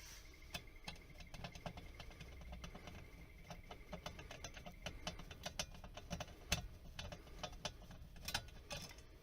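Faint irregular clicks and taps of handling in a ceiling space, with a faint steady high tone that stops about five seconds in.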